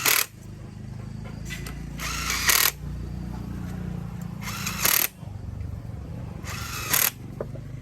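A power tool run in three short bursts of about half a second each, roughly two seconds apart, over a steady low hum.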